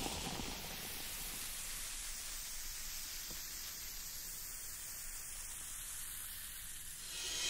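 Steady hiss of synthesised noise with a slow sweep moving through it, the intro of a 1990s Eurodance track, swelling near the end as the music builds in.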